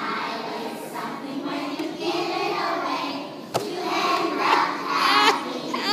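Many young children's voices at once, a group of kids on stage, with one sharp knock about halfway through.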